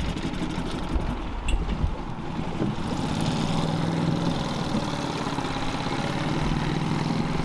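Small Honda four-stroke outboard motor running at idle. Its steady engine note strengthens about three seconds in.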